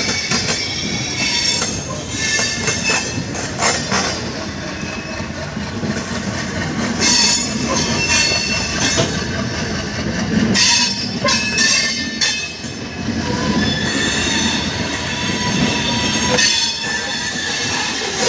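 Passenger train running on curved track through points, its steel wheels squealing in several high, shifting tones over a steady rumble. Irregular clanks sound as the wheels cross rail joints and points.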